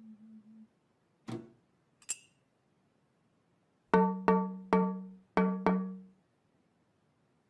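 A teaspoon striking a metal bread bin five times in quick succession, each strike ringing with a low tone and fading. Before that, a low ringing fades out, followed by a single knock and a short click.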